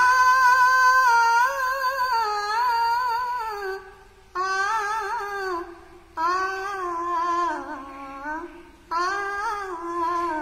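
A woman humming the wordless melody of a devotional bhajan, unaccompanied: one long phrase, then three shorter ones after brief pauses for breath.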